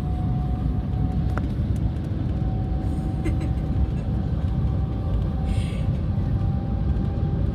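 Steady low rumble of a Transrapid maglev train heard inside its passenger cabin while travelling at speed, with a faint steady whine over it.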